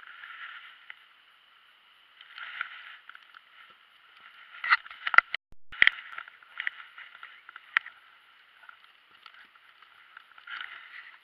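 Rubbing and rustling against the recording device's microphone, with scattered sharp knocks. The loudest knocks cluster about five seconds in, around a moment where the sound cuts out briefly.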